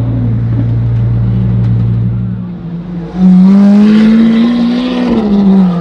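Lamborghini Aventador SV's V12 engine: a steady low drone, then about three seconds in a sudden, much louder burst of acceleration close by, its pitch climbing slowly and dropping again near the end.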